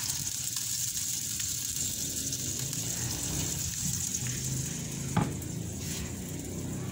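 Whole chicken sizzling as it roasts in a Hanabishi electric countertop oven at 220 °C: a steady hiss over a low hum. About five seconds in there is one sharp click as the oven's glass door is shut.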